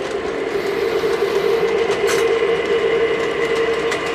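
Model train running on the layout track at slow speed: a steady motor and gear whine, with a sharp click about two seconds in as the wheels pass a rail joint.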